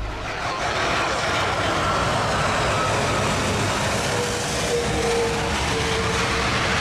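Steady engine noise with a loud rushing hiss, starting as soon as the music stops.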